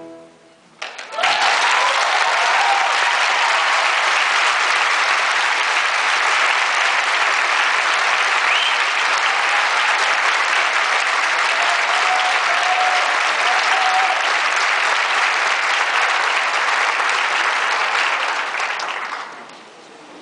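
Audience applauding. It breaks out suddenly about a second in, holds steady, and dies away near the end.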